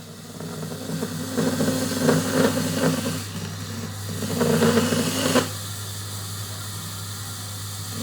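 Woodworking power tool motor running with a steady hum, with two stretches of louder hissing noise, the first about two seconds long and the second just over a second, which then drop back to the hum alone.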